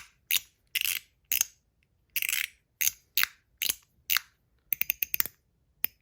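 Mott Groove fully mechanical slider fidget worked back and forth by hand, giving a sharp click at each stroke, about two a second. A few strokes are drawn out into short sliding sounds, and there is a quick run of clicks about five seconds in.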